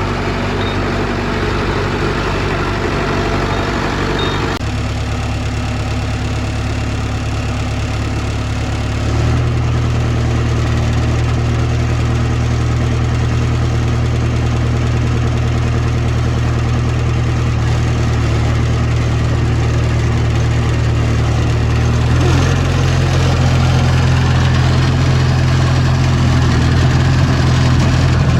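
Heavy machine's diesel engine running steadily, its note shifting a few times as the load or throttle changes: about four seconds in, about nine seconds in, and again a little louder after about twenty-two seconds.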